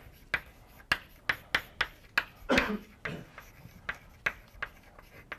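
Chalk tapping and scratching on a blackboard as words are written: a quick, irregular series of sharp taps, with a brief voice sound about halfway through.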